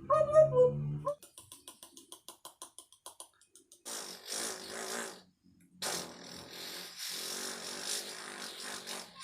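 A person making sound effects with the mouth: a brief hummed note, then a rapid run of clicks, then two long, noisy, raspy blows with a low buzz under them.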